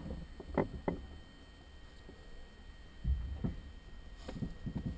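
Quiet inside the closed cockpit of a DG-1000 glider on the ground: a faint low rumble with a few small clicks and knocks, the rumble swelling a little about three seconds in.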